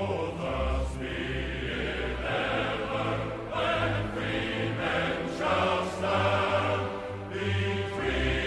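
Music with choir-like voices singing held notes over sustained low bass notes that change every second or two.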